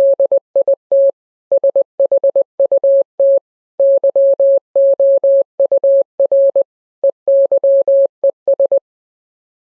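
Morse code sent as a single pure electronic beep, keyed on and off in short dots and longer dashes grouped into letters and words; it stops near the end.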